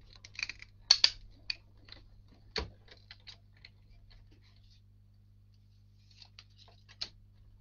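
Clicks and knocks from a hand-cranked die-cutting machine being worked with its plastic cutting plates: a few sharp clicks about a second in, a heavier knock about two and a half seconds in, then a lull and one more click near the end.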